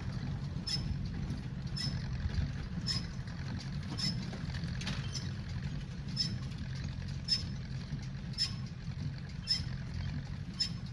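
Ford 860 tractor running steadily while powering a Massey 10 square baler, with a sharp metallic clack about once a second from the baler working hay.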